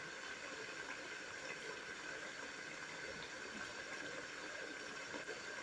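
Tomato sauce with carrots and bell peppers simmering in a pan: a steady bubbling with many small pops.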